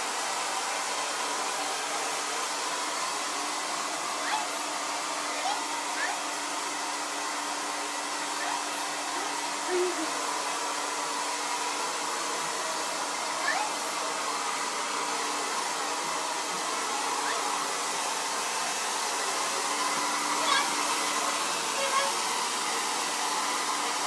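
Handheld hair dryer running steadily: an even blowing hiss with a low hum, and a few brief faint sounds over it.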